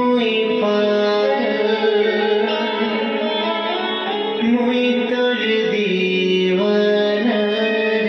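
Indian-style music: a melody moving in steps and slides over a steady held drone, with a singing voice or voice-like lead.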